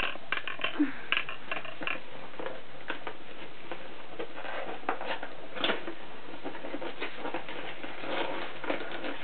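Boxed figurine being taken out of its packaging: irregular crinkles, rustles and light taps of packing material being handled, over a steady hiss.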